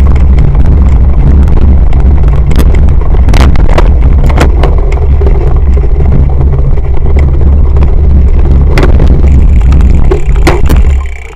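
Heavy wind buffeting and rumble on a bike-mounted action camera's microphone, with scattered knocks and rattles from a cyclocross bike riding over rough dirt. The rumble drops away sharply near the end.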